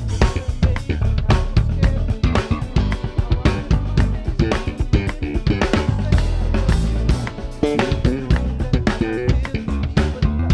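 A band playing a song, the drum kit driving it with fast, busy bass drum and snare strokes over bass and other instruments.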